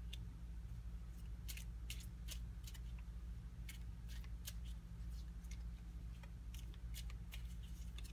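Tarot cards being handled: a scattered series of light, sharp clicks and snaps at irregular intervals, over a steady low hum.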